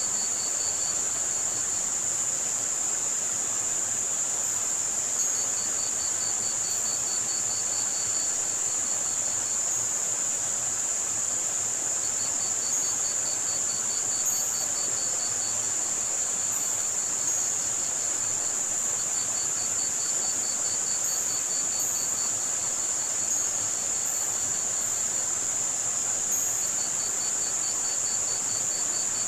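Layered tinnitus-masking soundscape: a steady, high-pitched white-noise hiss with sparse short chirps over it, crickets trilling in bouts of a few seconds that recur about every seven seconds, and the even rush of running lake water underneath.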